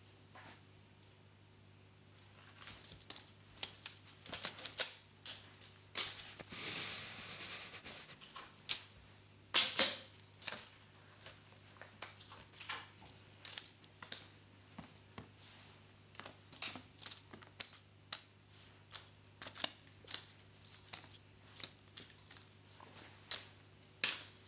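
Cat playing with a wand toy's crinkly paper lure, clawing and biting it on a shaggy mat: scattered rustles, crinkles and small scratchy clicks. A longer rustle comes about six seconds in.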